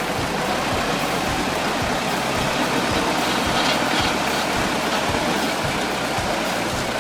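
Heavy machinery running with a steady engine noise.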